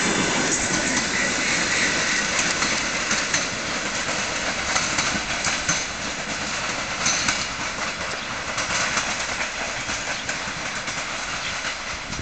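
Passenger train coaches rolling away over points and rail joints, their wheels clacking in an uneven run of clicks over a steady rumble. The sound slowly fades as the train recedes.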